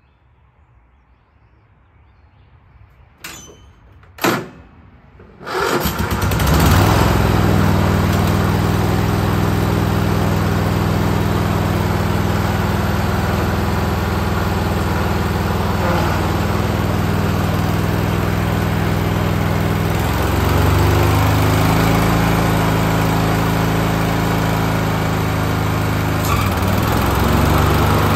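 Cub Cadet LT1045 lawn tractor engine being started: two sharp clicks, a brief crank, then it catches about five seconds in and runs steadily. Its pitch shifts about twenty seconds in and again near the end.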